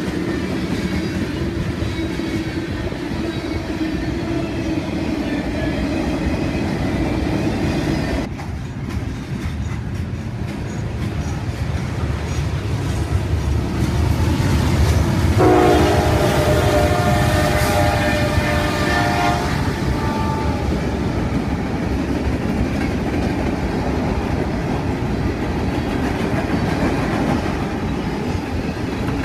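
Norfolk Southern mixed freight train's tank cars and covered hoppers rolling past steadily on the rails. About halfway through, a train horn sounds a multi-note chord for about four seconds.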